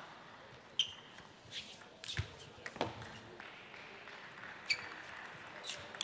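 Table tennis ball striking bats and the table in play: a few sharp, separate clicks at irregular spacing, some with a short high ring, the loudest about a second in and again near the end.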